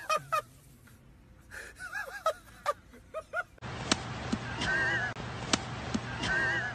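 Short wordless vocal outbursts, gasps and cries, in quick bursts that break off at two sudden cuts. In the last few seconds a steady outdoor hiss runs under high, wavering cries and a few sharp clicks.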